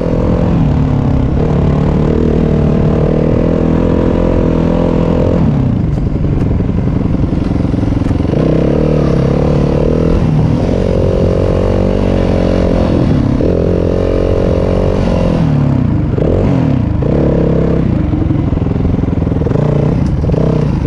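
Yamaha WR250F single-cylinder four-stroke dirt bike engine running under load on a trail, its pitch rising and falling with the throttle and dropping off briefly about five seconds in and again about sixteen seconds in.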